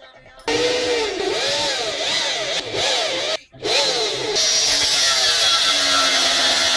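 Corded electric drill boring through a steel strip, its pitch wavering under load, with a brief stop about three seconds in. From about four seconds in, an angle grinder mounted in a cut-off stand cuts through steel with a steady, bright sound.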